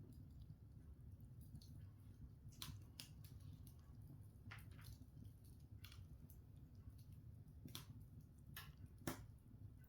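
Open log fire in a hearth crackling quietly over a low, steady rumble, with scattered sharp pops from the burning wood; the loudest pop comes about nine seconds in.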